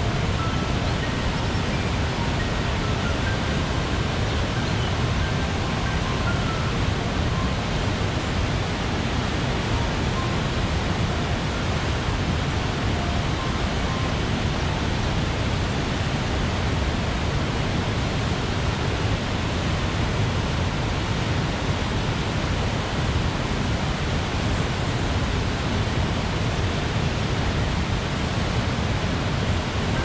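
Wide river rapids and waterfall pouring over rocks: a steady, loud rush of water with a strong low rumble.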